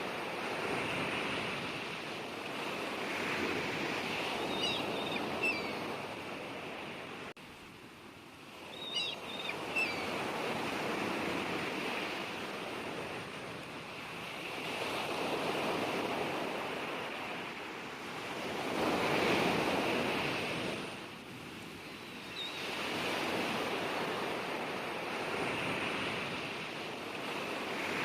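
Sea waves washing onto the shore, the surf swelling and falling back every few seconds, with a few brief high chirps in the first ten seconds.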